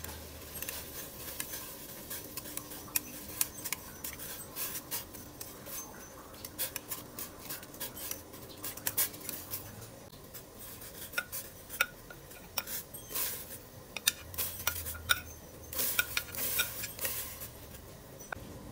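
Metal kitchenware clinking, tapping and scraping against a stainless steel cooking pot in irregular clicks, with a few short ringing clinks in the second half.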